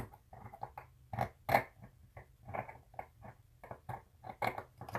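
Tungsten-tipped scribe scratching layout lines into a small metal block: a run of short, irregular scraping strokes, about two a second.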